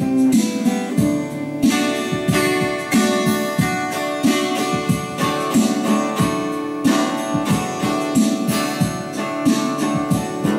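Twelve-string acoustic guitar being played, strummed and plucked chords ringing with repeated attacks throughout.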